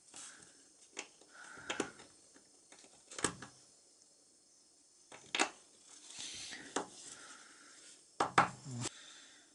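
A thin metal pick scraping and clicking inside a small metal lighter part: irregular sharp ticks every second or so with short scrapes between, and a quick run of clicks near the end.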